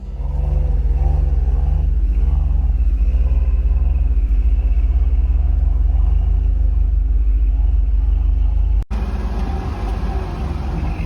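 A four-by-four's engine running, a heavy low rumble whose pitch wavers slightly as the throttle changes. About nine seconds in it cuts abruptly to a noisier, hissier stretch of engine rumble.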